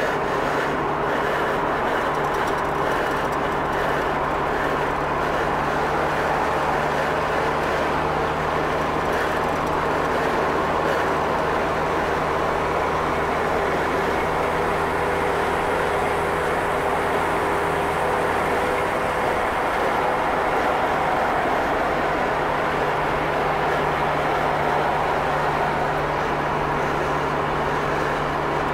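Steady vehicle running noise, engine and road rumble with a constant low hum and no change in pitch.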